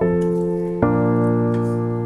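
Background keyboard music: slow sustained piano-like chords, a new chord struck about a second in.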